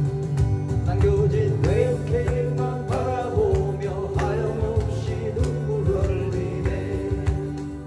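Live music: an acoustic guitar played over an accompaniment, with a wavering melody line on top.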